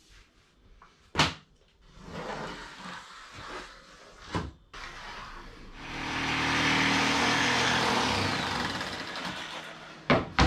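Handheld electric power saw running for about four seconds in the second half, cutting a 5 mm plywood sheet. Before it, a sharp knock about a second in and a second knock near four seconds.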